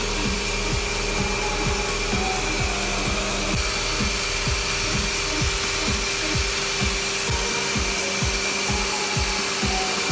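Pressure washer running steadily, its water jet hissing as it rinses grime and chemical foam off an air-conditioner evaporator coil's fins, over a constant motor whine.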